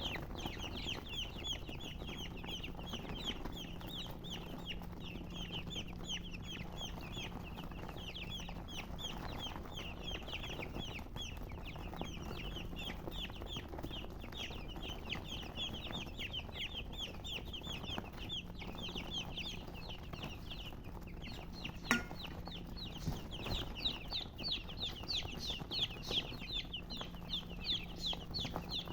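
Baby chicks peeping continuously, many short, high, falling peeps overlapping without pause. A single sharp click comes about two-thirds of the way through.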